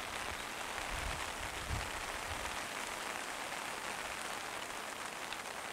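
Steady rain falling on a pond's surface: a dense, even hiss of drops hitting the water.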